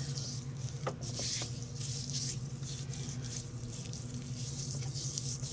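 Hands rubbing dry seasoning rub into a raw pork shoulder (Boston butt), an irregular soft swishing that swells and fades, with a few light taps. A steady low electrical hum runs underneath.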